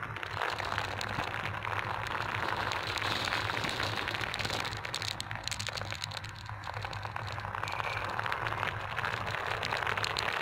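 Glass marbles rolling in a line down a groove in sandy dirt: a steady gritty crackle of sand grains crunching under them, dotted with many small clicks.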